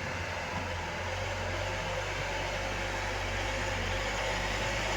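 Diesel engine of heavy machinery running steadily: an even low hum with a hiss over it.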